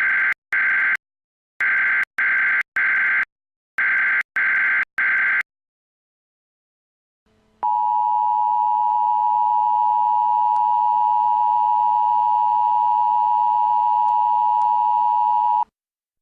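Emergency Alert System tones. Three sets of short, buzzy digital data bursts (the coded SAME header) are followed, after a brief silence, by the steady two-tone attention signal, held for about eight seconds before it cuts off. Together they mark the start of an emergency alert broadcast.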